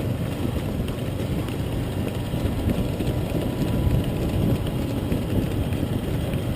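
Motorcycle engine running steadily at low speed, mixed with a constant low rumble of wind on the microphone.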